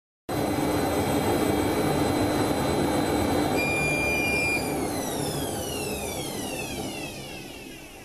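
A machine running with a steady high whine over a rumble, then from about three and a half seconds in its pitch falls and it winds down, fading.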